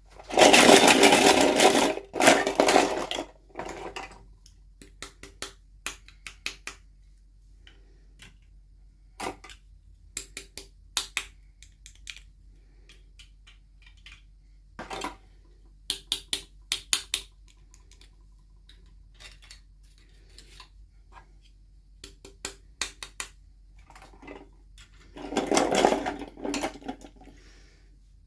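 Toy packaging being handled and opened: two loud stretches of plastic rustling and crinkling, one at the start and one near the end, with scattered clicks and taps of small plastic pieces in between.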